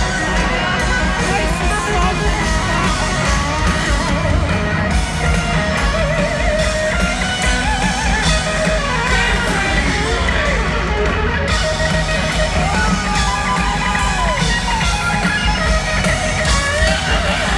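Live heavy metal band played loud through a stadium sound system: a distorted lead electric guitar solos with wide vibrato and pitch bends over pounding drums and bass.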